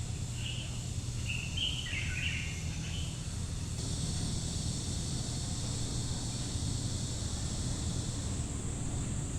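Outdoor nature ambience: a few short bird chirps in the first three seconds over a steady high insect drone and a low steady hum. The insect drone steps up abruptly about four seconds in.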